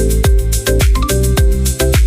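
Upbeat electronic background music with a steady kick-drum beat, bass and short pitched melody notes.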